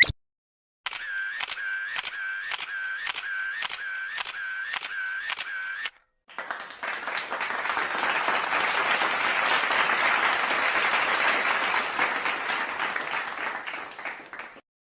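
Two stock sound effects in turn: a camera shutter clicking about twice a second for about five seconds, then, after a short gap, a crowd applauding for about eight seconds, fading out near the end.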